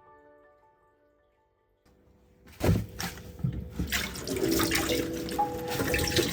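Water from a tap running into a sink, starting suddenly with a splash about two and a half seconds in and then running steadily.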